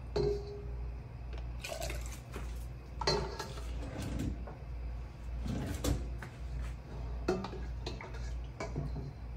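Chicken broth being ladled from a stainless stockpot and poured through a plastic canning funnel into glass mason jars: liquid pouring and splashing, with scattered knocks of the ladle against the pot. A steady low hum runs underneath.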